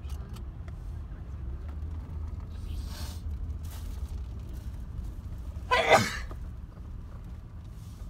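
Steady low rumble of a car driving, heard from inside the cabin. About six seconds in there is one short, loud sharp sound.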